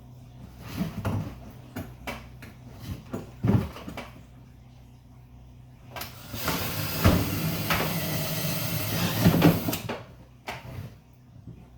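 A power drill with a large bit boring a hole through the side of a plastic Brute bucket, a run of nearly four seconds in the second half. It follows a few knocks as the bucket and drill are handled.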